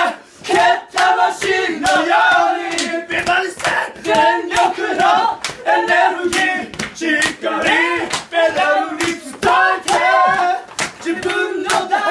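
Several men shouting and chanting loudly together in strained, breaking voices, with many sharp hand claps through it.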